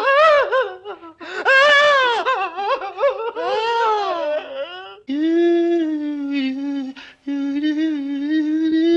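A man making wordless vocal noises: quick wavering whines, then two high cries that rise and fall, then two long, steady hummed notes of about two seconds each.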